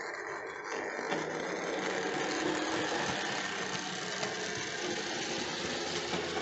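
Hornby OO gauge model goods train, hauled by a GWR 0-6-0 pannier tank locomotive, running along the track. It makes a steady mechanical whirr and rattle that grows louder about a second in as the train passes close.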